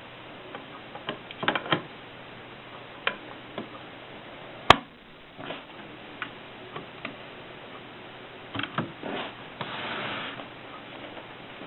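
1939 Erika 5 portable typewriter being handled: scattered mechanical clicks and knocks, one sharp loud click about five seconds in, and a brief scraping rustle near the end.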